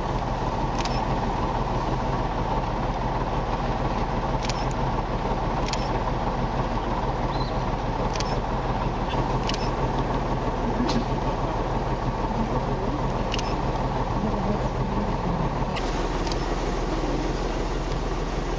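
Safari truck's engine running steadily, a constant low hum, with a few faint short high ticks scattered over it.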